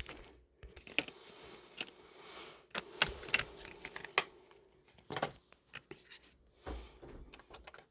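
Irregular small plastic clicks, taps and scrapes as hands handle an opened laptop and its parts, such as the case panel and RAM modules.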